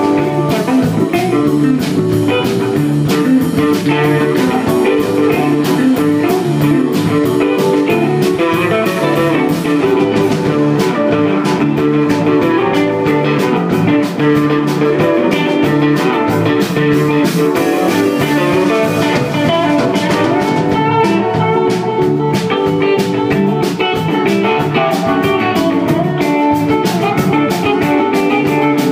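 Live rock band playing: electric guitars, keyboard, bass and drum kit, with a steady beat kept on the cymbals.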